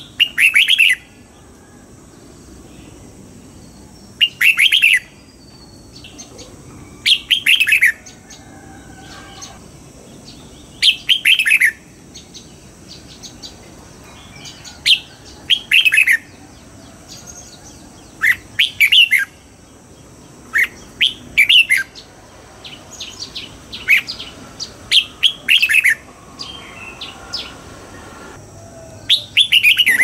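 Red-whiskered bulbul singing short, bright phrases of a few quick notes, one phrase every few seconds, coming closer together in the second half.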